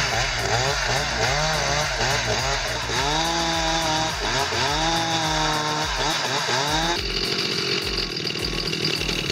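Gas chainsaw running under load, its engine pitch rising and falling again and again as it is revved through the cut. About two-thirds of the way in the sound changes to a steadier, coarser running note.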